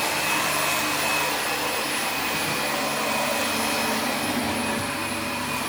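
Vacuum cleaner running steadily as it is pushed over a carpet, a continuous even whirring.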